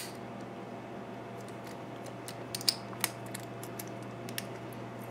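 Scattered light clicks and ticks from a padlock and lock-picking tools being handled, with a faint steady hum underneath.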